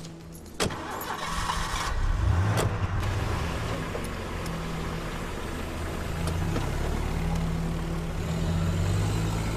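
A car door shuts, then about two seconds in a car engine starts and keeps running as the car drives off, its note rising and falling.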